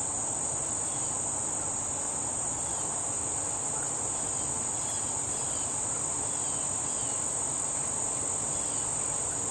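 Steady, unbroken high-pitched chorus of crickets trilling.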